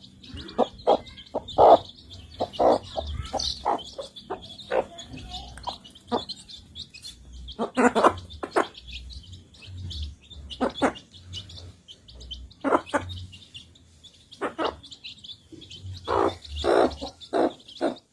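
Chickens eating: irregular sharp pecks of beaks at feed, some coming in quick clusters, over steady high chirping.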